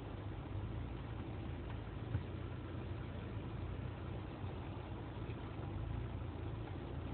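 Jeep Wrangler JK engine running low and steady as the Jeep crawls slowly over a dirt off-road trail, with a single sharp knock about two seconds in.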